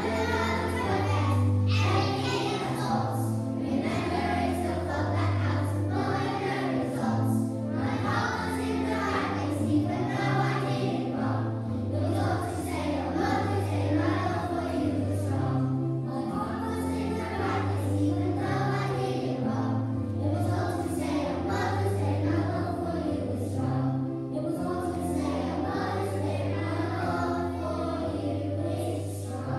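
A group of young children singing a song in unison with instrumental accompaniment, a bass line moving under their voices.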